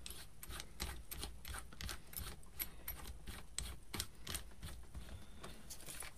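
Light, irregular clicks and taps of a cordless drill and small hard parts being handled as the drill is readied for drilling; the motor is not running.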